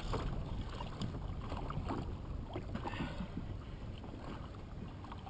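Water sloshing and slapping against the hull of a small open boat on choppy water, with a low rumble of wind and a scattering of light knocks.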